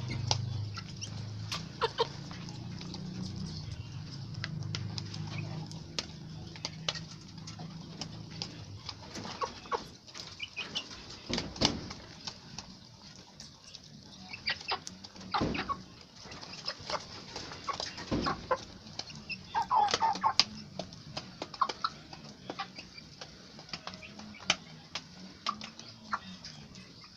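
Chickens clucking, with many short sharp clicks of pecking and scratching. A low drone runs under the first several seconds.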